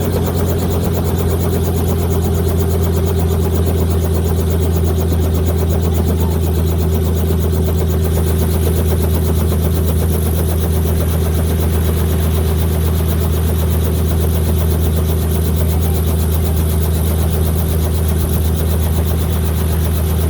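Small helicopter's engine and rotor running steadily: a loud, constant drone with a fast, even flutter from the blades.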